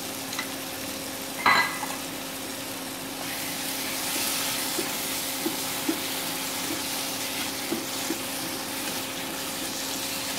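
Tomato-onion masala sizzling in a nonstick wok as yogurt is stirred into it with a spatula. The sizzle grows louder about three seconds in, once the stirring starts, with a single knock about a second and a half in, small scraping ticks, and a steady low hum underneath.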